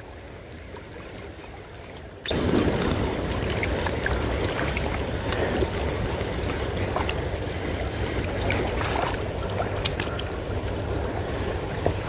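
Fairly quiet for the first two seconds, then a sudden jump to the steady rush of fast-flowing river current, with wind rumbling on the microphone and scattered small clicks of handling.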